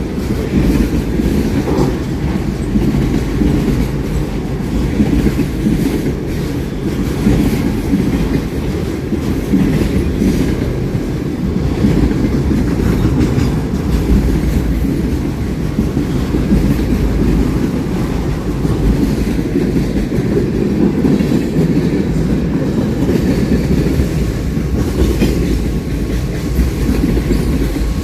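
A train rolling steadily past, its cars' wheels running on the rails with a continuous low rumble.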